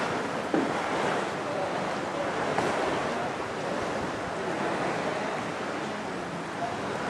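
Small sea waves washing and lapping in shallow water, a steady wash, with one brief knock about half a second in.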